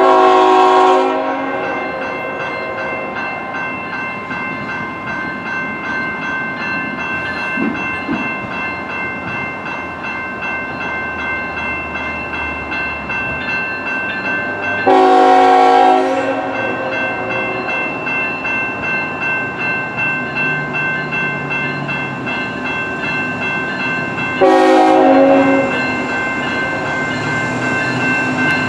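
Railway level crossing: warning bells ring steadily while a train rumbles past. A locomotive air horn sounds three separate blasts of about a second each: at the start, about midway and about two-thirds of the way through.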